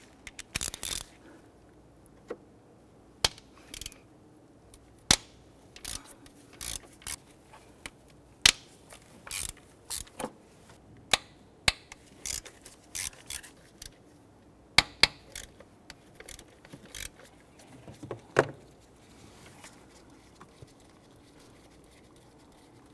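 Hand ratchet clicking as it loosens the 10 mm intake manifold bolts, in short irregular runs of sharp clicks with pauses between.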